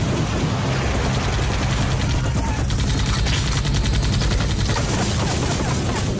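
Rapid automatic rifle fire from a helicopter's open door, shots coming thick and fast and densest from about halfway through, over the steady low drone of the helicopter.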